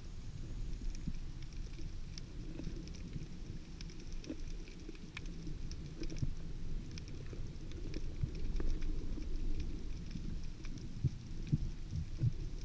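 Underwater ambience heard through a camera's waterproof housing: a steady muffled low rumble with scattered faint clicks and crackles.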